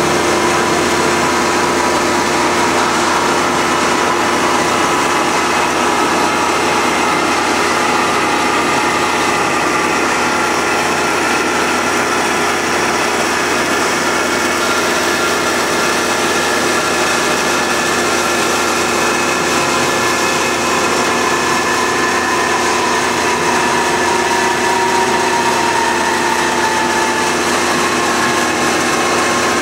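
Marvel 15A/S horizontal band saw running steadily as its blade cuts through a tube, an unbroken mechanical whir with a few steady tones.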